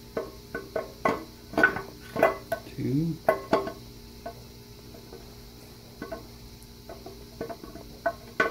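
Light metallic clinks and knocks of a camshaft being slid into a 7.3 Powerstroke diesel block through new, tight cam bearings, busy at first and then sparse, over plucked-string music.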